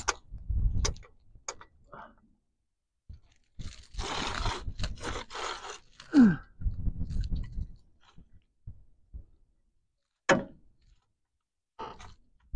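Gravel crunching and scraping with scattered knocks as a floor jack with a wood block on its saddle is shifted into place under a truck frame, with a short falling grunt about six seconds in.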